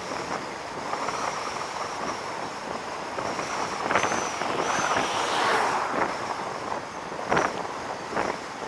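Wind rushing over a camera microphone on a moving vehicle, a steady noisy rush with gusty buffets about four seconds in and again near the end.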